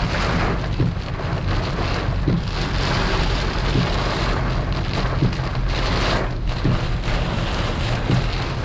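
Steady rain falling on a moving car, with the hiss of tyres on a wet road under a constant low hum from the car.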